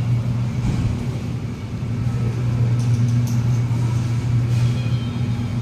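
CNR Changchun-built metro train standing at the platform with its doors shut, its equipment giving a steady low hum. A couple of faint clicks come about three seconds in.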